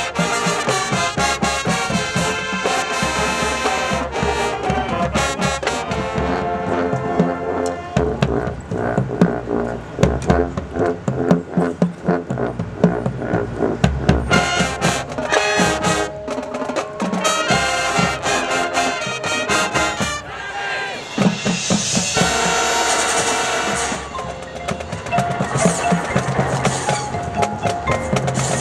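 High school marching band playing: brass over drums and other percussion, with a held brass chord about three-quarters of the way through.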